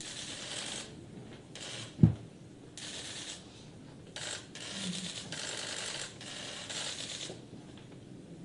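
Press photographers' camera shutters firing in rapid bursts, rattling runs of clicks that overlap and stop and start about every half second. A single loud low thump comes about two seconds in.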